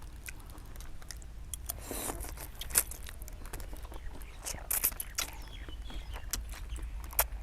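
A person eating noodle soup close to the microphone: chewing, with scattered small clicks and a few short noisy bursts, over a steady low hum.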